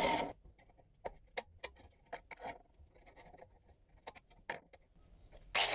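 Light, irregular clicks and scratches of a steel scribe being run around a clamped sheet-steel repair panel. Background music cuts out just after the start and comes back near the end.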